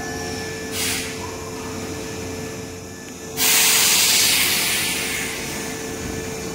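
Stopped Hankyu electric train venting compressed air. A short hiss comes about a second in, then a loud burst of air hiss starts suddenly halfway through and fades over about two seconds, over a steady hum.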